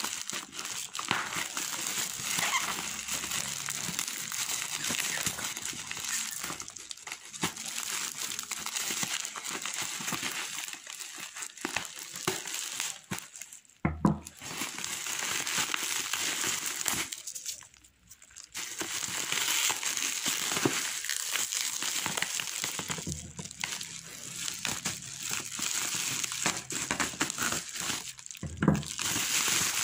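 Plastic bubble-wrap packaging crinkling and rustling as it is handled and unwrapped, with a couple of brief pauses.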